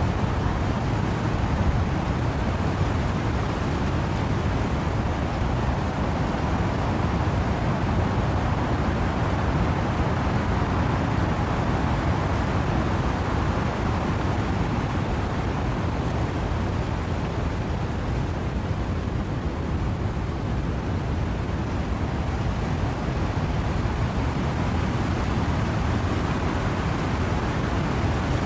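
Steady rain with wind rushing through trees, a continuous even hiss heaviest in the low range.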